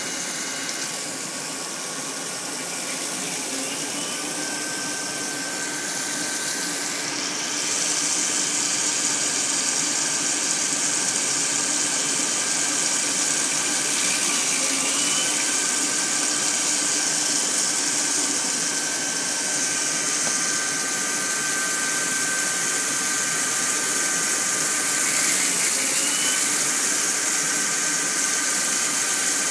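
Mori Seiki SL-2H CNC lathe machining 6061 aluminium bar stock: a steady high whine from the machine over a rushing hiss. The hiss grows louder about seven seconds in, and the whine shifts pitch a few times.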